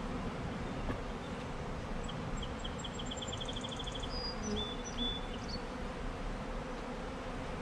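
Steady buzzing hum of many honeybees in flight around a hive freshly stocked from a package.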